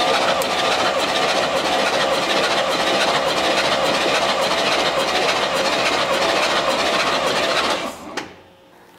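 Chevrolet 396 big-block V8 being cranked over by its starter without firing, for a wet compression test on cylinder three with oil added to seal the rings. The cranking stops about eight seconds in, followed by a single click.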